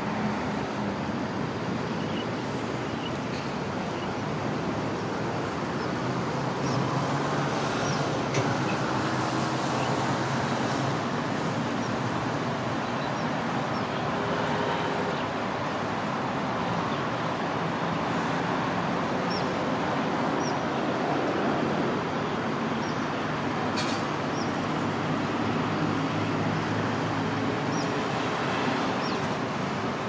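Steady road traffic from cars and buses, an even hum with engine tones rising and fading under it.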